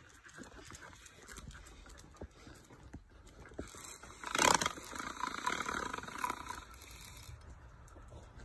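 Footsteps and scuffing on stone paving while walking, with a loud rustling scrape about halfway through that fades over the next two seconds.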